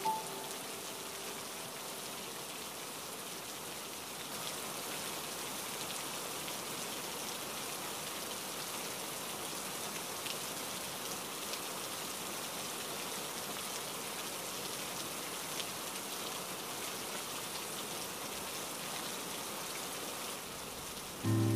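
Steady heavy rain: an even, dense hiss with a few faint scattered drop ticks. Music fades out at the very start and comes back in just before the end.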